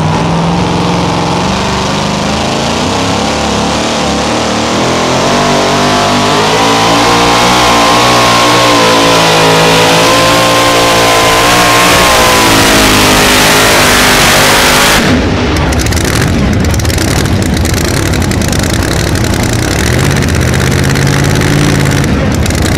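Supercharged engine of a two-wheel-drive pulling truck at full throttle, pulling a weight-transfer sled, its pitch wavering and climbing as it runs. About fifteen seconds in the sound changes abruptly to a lower, rougher note as the pull comes to an end.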